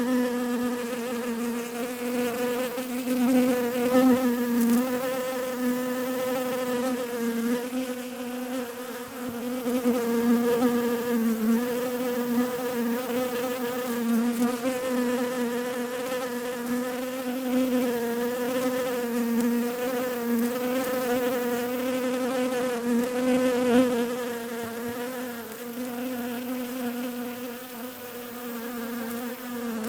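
Bees buzzing in a steady drone whose pitch and loudness waver slightly.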